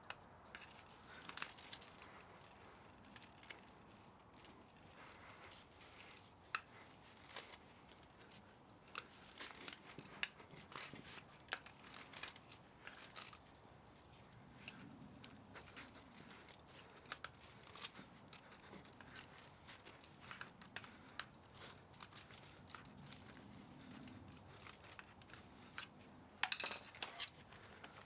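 Hand tools working on a scrap electric motor: irregular small clicks, snips and scraping of metal and wire, coming in scattered bunches with a busier flurry near the end.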